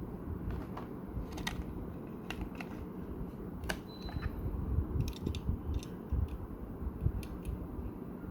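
Irregular small clicks and taps of a boxed model car and its plastic packaging being handled, over a steady low rumble.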